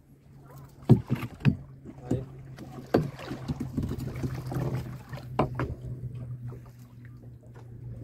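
Small boat's outboard motor idling with a steady low hum, with sharp knocks and thumps on the hull as a handline is hauled in. A hooked grouper splashes at the surface beside the boat around the middle.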